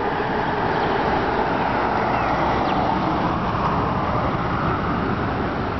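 Airbus A319-112's CFM56 jet engines heard from beside the runway as it rolls out after touchdown: a steady rushing engine noise that swells slightly about half a second in.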